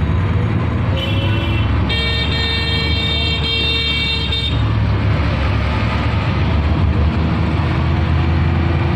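Steady low road and engine rumble of a car driving in traffic, heard from inside the cabin. A vehicle horn gives a short toot about a second in, then a longer, shrill blast lasting about two and a half seconds.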